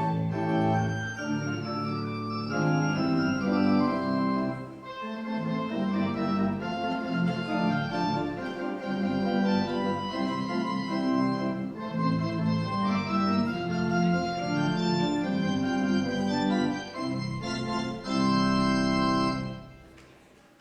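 Church organ playing the closing postlude in sustained chords, ending on a loud held chord that dies away near the end.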